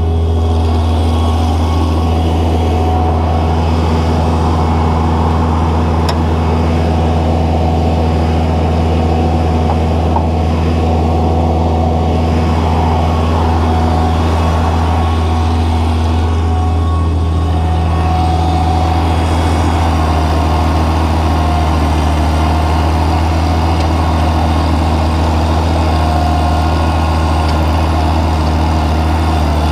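Mobility Dipper 4x4 loader's engine running steadily at a constant speed, heard close up from the operator's seat.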